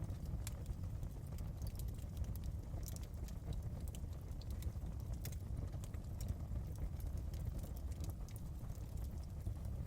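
Wood fire burning in a fireplace: irregular sharp crackles and pops scattered throughout over a steady low rumble of the flames.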